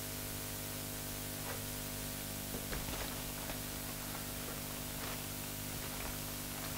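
Steady electrical hum and hiss of the room and recording chain, with a few faint short taps and scratches scattered through it.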